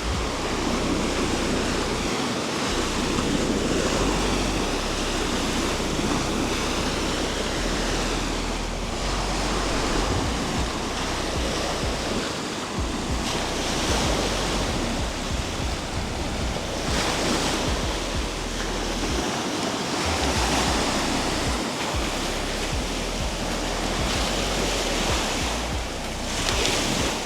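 Sea waves washing onto a beach in strong wind, surging every few seconds, with wind rumbling on the microphone.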